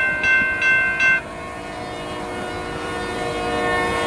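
Grade-crossing warning bell ringing about two and a half strokes a second for its last three strokes, stopping about a second in. Then a diesel locomotive's air horn sounds one long steady chord that grows louder toward the end.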